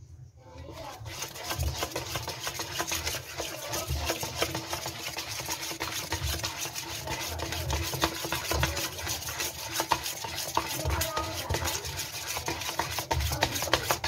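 A spoon beating soft, wet pholourie batter round a stainless steel bowl: continuous fast slapping and scraping with rapid clicks of the spoon against the metal, starting about a second in.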